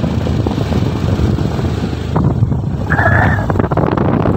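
Motorcycle engine running steadily on a downhill ride, with wind rumbling on the microphone. A short high-pitched squeal sounds about three seconds in.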